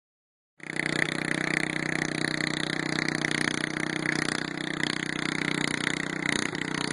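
Riding lawn mower engine running steadily at a constant pitch, starting about half a second in.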